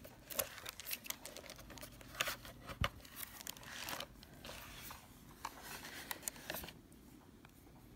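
Plastic wrap crinkling, with light clicks and knocks, as a portable DVD player's screen unit is handled and turned over; the rustling stops shortly before the end.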